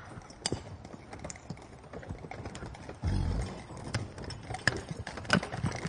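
Horses grazing in a meadow: scattered soft clicks and crunches, with a low thump about three seconds in.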